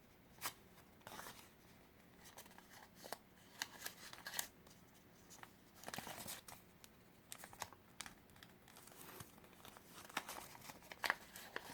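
Sheet of folding paper crinkling and rustling in short bursts as it is handled and creased, flaps being opened and tucked inside.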